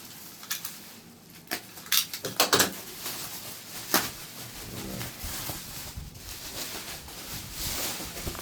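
Packaging being opened by hand: rustling and crinkling, with a sharp click about two seconds in, a quick cluster of clicks just after, and another click at four seconds.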